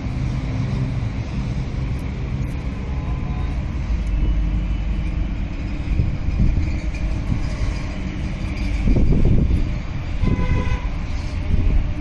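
Steady low rumble of a running vehicle, swelling about three-quarters of the way in, with a short higher tone near the end.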